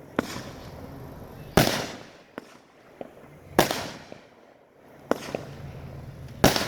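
Fireworks going off: three loud bangs about two seconds apart, with smaller pops and cracks between them.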